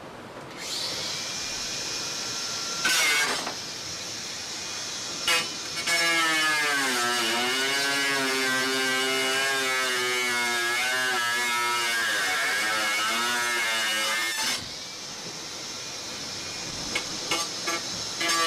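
Angle grinder running and cutting into carbon fibre. Its motor starts with a steady whine and gives short louder bites. Then comes a long cut of about eight seconds where the whine drops in pitch under load, holds, and climbs back before it eases off.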